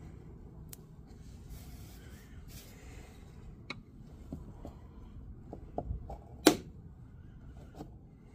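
Metal pry tools scraping and clicking against the plastic surround of a Chevy Volt charge port as it is levered at, with scattered small clicks and one loud, sharp click about six and a half seconds in.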